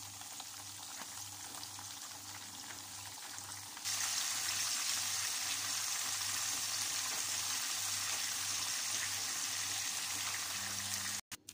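Split whole fish shallow-frying in oil on parchment paper in a pan: a steady sizzling and bubbling that turns markedly louder about four seconds in, once the fish have been turned and are browning.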